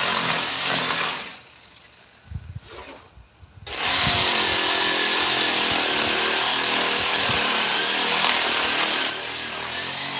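Handheld power tool running against wood, with a pause of about two and a half seconds near the start that holds a few knocks, then running steadily again and dropping a little in level near the end.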